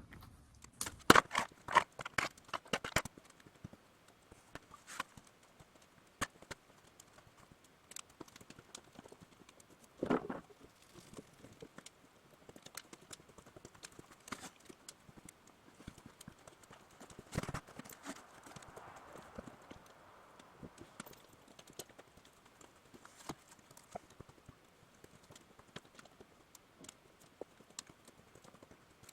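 Scattered hard knocks and clicks: a quick run of them in the first three seconds, then occasional single taps, with two louder knocks about ten and seventeen seconds in.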